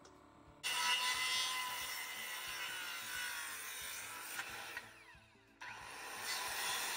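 Corded circular saw cutting across rough-sawn wooden boards, a high whine over the cutting noise. It starts abruptly about half a second in, winds down with a falling whine about five seconds in, then cuts again.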